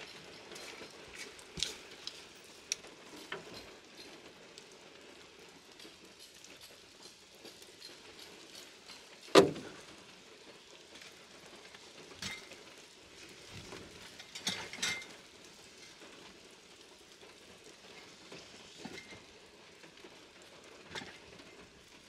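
Steady rain pattering, with scattered knocks and clatter of gear being handled and loaded into a van, and one loud thump about nine seconds in.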